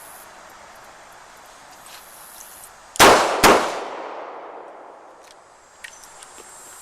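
Two shots from a Smith & Wesson 360 snub-nose revolver firing .38 Special rounds, about half a second apart, each followed by a fading echo.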